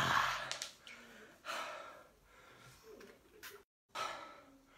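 A man breathing hard, catching his breath after an exercise set: a loud exhale at the start, then further heavy breaths about every two seconds. The audio drops out for a moment near the end.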